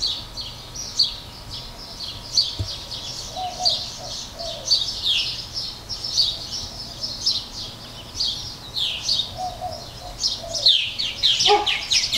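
Several birds chirping and calling outdoors: many quick falling chirps overlapping, with a louder burst of chirping near the end.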